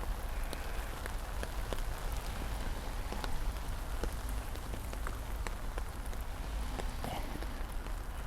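Heavy rain in a downpour: a steady, dense patter, with many single drops ticking sharply through it.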